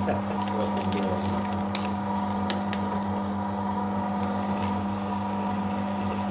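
Electric paper shredder running steadily with a constant motor hum as it shreds a continuous strip of thermal-print ECG paper, with a few faint ticks over the hum.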